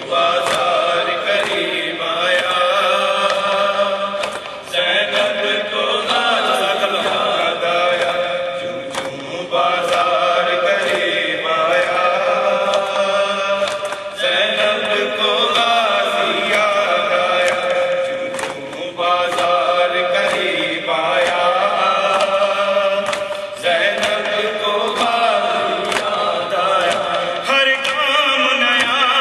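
A man reciting an Urdu noha, a Shia lament, sung into a microphone in long chanted phrases, with a steady beat of sharp strikes behind the voice.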